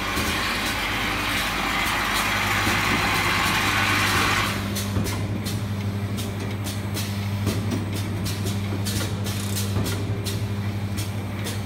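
Packaging machinery running with a steady low hum, and a hiss over it that stops about four and a half seconds in. After that, rapid light clicking of plastic caps rattling in a stainless vibratory bowl feeder.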